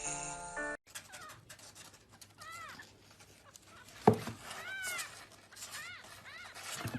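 A cat, small by its high pitch, mewing in short arched calls about four times. A sharp knock is heard about four seconds in.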